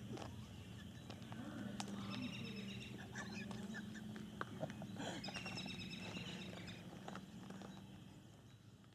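Birds chirping and calling over a steady low hum, fading out near the end.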